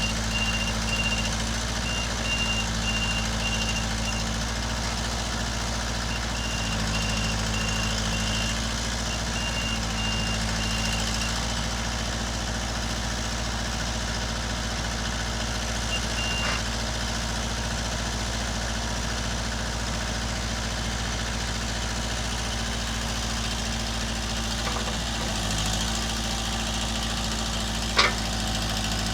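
Kubota L45 loader backhoe's four-cylinder diesel engine idling steadily. A high beeping alarm sounds in repeated runs and stops with a click about halfway through. A single sharp clack comes near the end.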